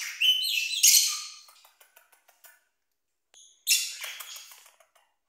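Small pet parrots calling in shrill chirps and squawks: a burst through the first second and a half, and another a little before four seconds in, with a few faint ticks between.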